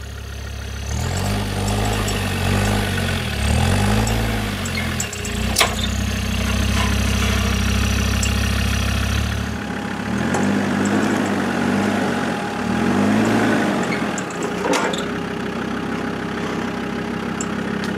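A four-wheel drive's engine being worked on a hard off-road track, its revs rising and falling again and again, held high and steady for a few seconds in the middle. Two sharp knocks, one about five and a half seconds in and another later on.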